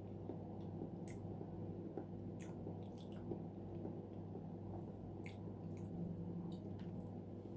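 Close-up mouth sounds of chewing soft sweet potato: moist, squishy chewing with scattered sharp wet mouth clicks, over a steady low background hum.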